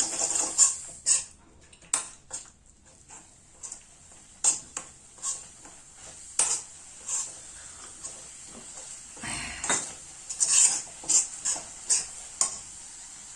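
A spoon scraping and knocking irregularly against a kadhai while ginger paste is stirred, over a faint sizzle of the paste cooking. There is a longer scrape about nine seconds in.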